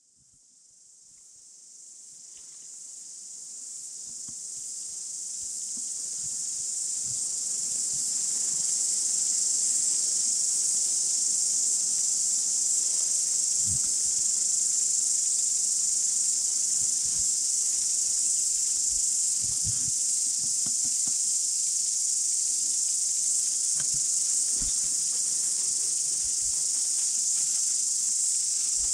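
Steady high-pitched insect chorus, fading in over the first several seconds and then holding level, with a few faint soft knocks underneath.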